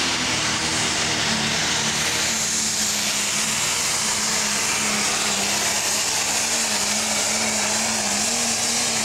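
International 966 pro stock pulling tractor's turbocharged diesel engine at full throttle under heavy load as it drags the sled, a steady, loud roar whose pitch wavers slightly.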